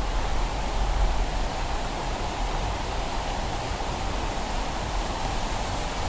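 Steady rush of flowing water from the waterfall stream, an even hiss without breaks, with a flickering low rumble underneath.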